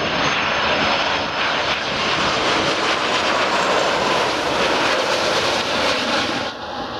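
Jet engine noise from a Lufthansa Airbus A330-300's two Rolls-Royce Trent 700 turbofans as it comes in to land: a loud, steady rush that dips briefly near the end.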